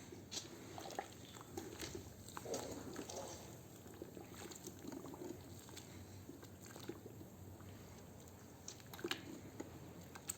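Lumps of wet sand crumbling, soft crunches and squishes with scattered small sharp clicks.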